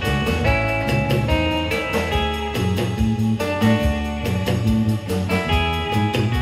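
Live band playing rautalanka, the Finnish twangy electric-guitar style: a lead electric guitar melody over acoustic rhythm guitar, bass guitar and drums keeping a steady beat.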